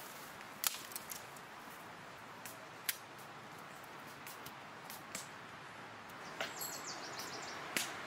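Dry sticks and twigs cracking and snapping at irregular moments, each one sharp and short, as sticks are gathered for a campfire. A quick run of high chirps comes near the end.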